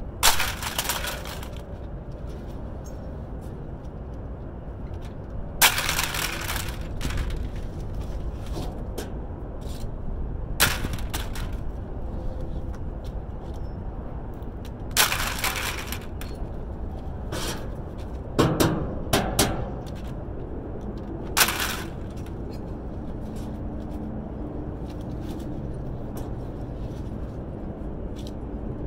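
Scrap metal being handled and thrown down: sharp clanks and crashes every few seconds, several close together a little past the middle, over a steady low rumble.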